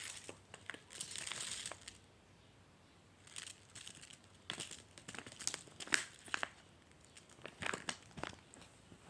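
Crinkly plastic being handled and squeezed: a rustle about a second in, then scattered crackles and crinkles for several seconds.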